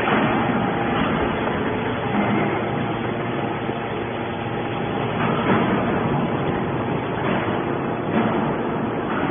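Steady machinery noise with a faint hum, broken by a few brief louder knocks or scrapes.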